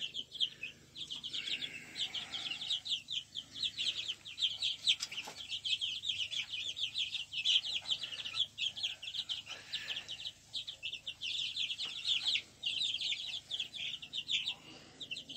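A flock of young chickens peeping: a busy, continuous stream of short, high chirps from several birds at once.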